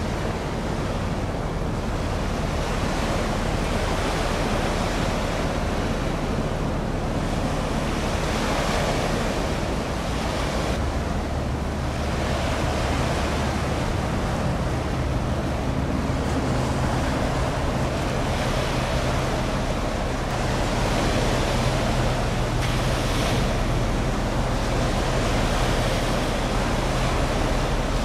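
Wind on the microphone and sea water washing, over a low steady hum of the passing ship's engines, which grows stronger about halfway through.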